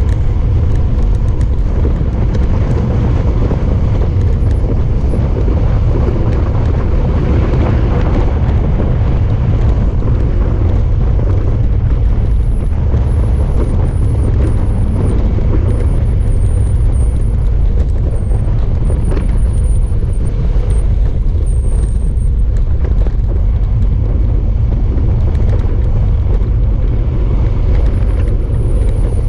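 Wind rushing over a bike-mounted GoPro's microphone on a fast road-bike descent, a loud steady rumble mixed with tyre noise on the asphalt.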